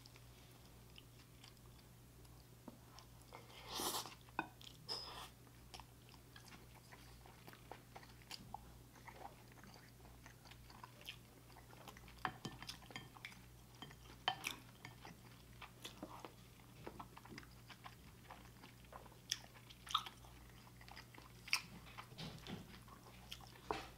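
Soft chewing and mouth sounds of someone eating beef and rice, with scattered small clicks of a wooden spoon against a ceramic bowl, over a faint steady low hum. A louder spell of chewing comes about four seconds in.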